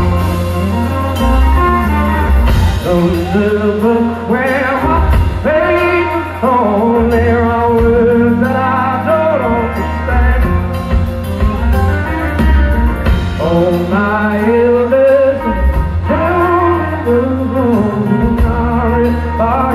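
Live rock band playing, with a male lead singer's long, wavering vocal lines over a strong bass.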